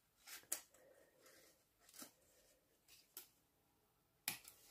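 Small craft scissors snipping paper: a few quiet, separate snips, the loudest near the end.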